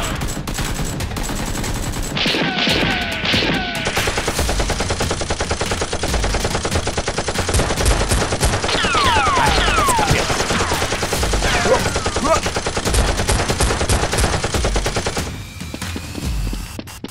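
Gunfire sound effects: long runs of rapid automatic fire, with several falling whistle-like sweeps over them. The fire dies away near the end.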